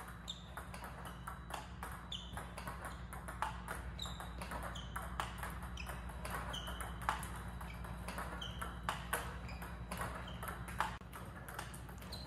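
Table tennis balls clicking on the table and off the paddle in a steady rhythm, about one hit a second, as a player loops robot-fed deep no-spin balls.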